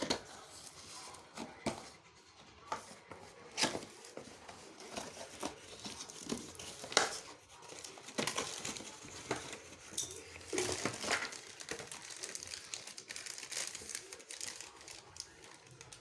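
Cardboard box being opened and unpacked by hand: flaps and inserts rustling, scraping and crinkling, with irregular sharp clicks and knocks.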